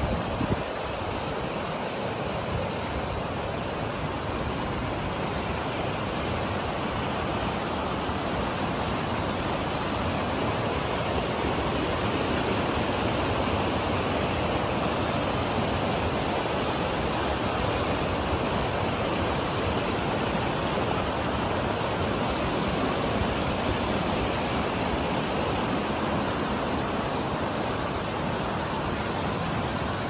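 River water rushing past, a steady unbroken noise of flowing water.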